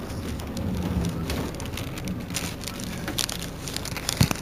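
Otokar Navigo T midibus idling at a stop: a steady low engine hum under scattered crackling clicks, with one sharper click near the end.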